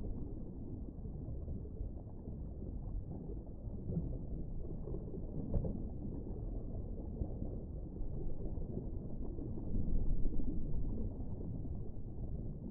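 Low, muffled underwater ambience: a steady dark rumble with a brief tick about five and a half seconds in and a swell around ten seconds.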